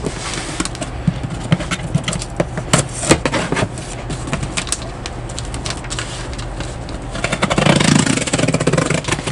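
Cardboard shipping box being handled and opened by hand: fingers scraping, tapping and rustling on the cardboard and its plastic packing-slip pouch, with a louder rustle about eight seconds in. A steady low hum runs underneath.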